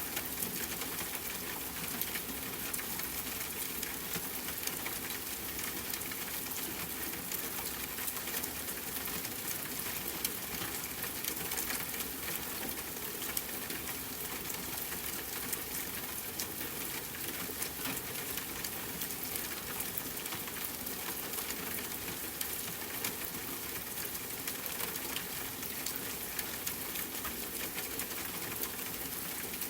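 Steady rain hiss blended with a wood fire crackling, with many small scattered pops.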